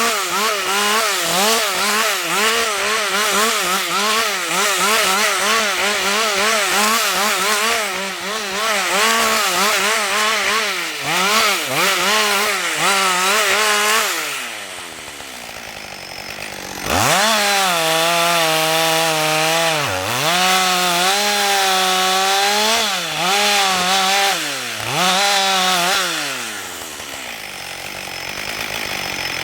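Husqvarna 562 XP two-stroke chainsaw running at high revs with its pitch wavering. It drops to idle about 14 s in, revs back up about 3 s later, dips a few times, and falls back to idle near the end.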